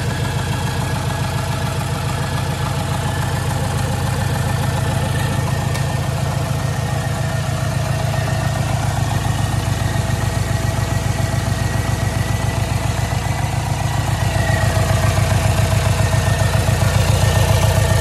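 VW 1.9 TDI (AHU) four-cylinder diesel, converted to a mechanical Bosch VE rotary injection pump, idling just after being started, with an even rapid diesel pulse. It gets a little louder about three-quarters of the way through.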